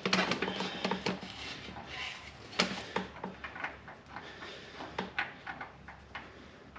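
Metal clinks and knocks of a drain plug being put back into a John Deere 4440 tractor's transmission case and worked tight with a wrench, irregular taps with a couple of sharper knocks.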